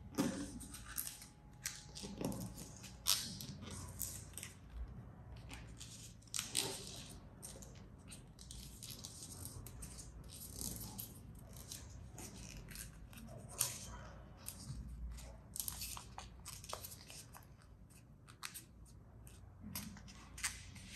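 A paper dollar bill being folded and creased by hand: irregular crinkles and short crackles of the stiff banknote paper, with a few sharper ones.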